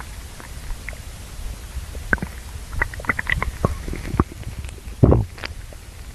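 A hungry human stomach growling and gurgling: a continuous low rumble with quick squeaks and pops from about two seconds in, and a louder gurgle about five seconds in.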